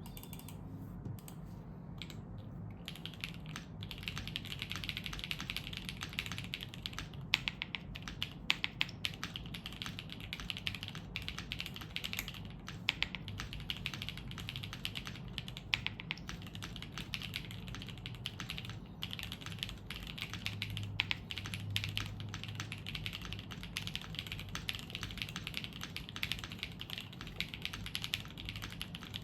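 Typing on a QK80 mechanical keyboard with Gateron CM 3.0 switches, a polypropylene plate with plate foam, and Aifei keycaps. A few scattered keystrokes, then fast, steady typing from about four seconds in, with a few louder clacks among the keystrokes.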